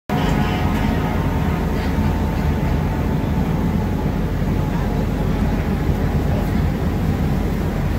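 Busy city street noise: a steady low rumble of traffic with the murmur of a crowd standing close by.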